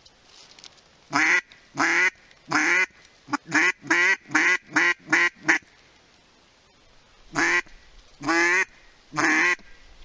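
Duck call blown in a run of quacks: three long quacks, then a quicker string of short quacks, then after a pause three more long quacks.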